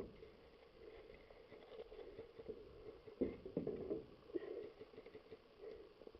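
Faint, scattered soft knocks and rustling, a little busier about three to four seconds in.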